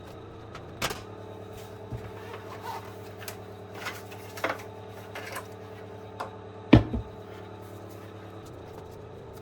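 Parts of a disassembled induction hob being handled: scattered light clicks and knocks, with one louder knock about two-thirds of the way through, over a steady low hum.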